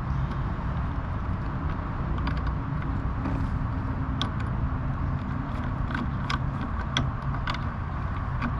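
Scattered light metallic clicks and taps of hand tools on the small bracket of a jet ski's handlebar start switch as it is worked loose, over a steady low rumble.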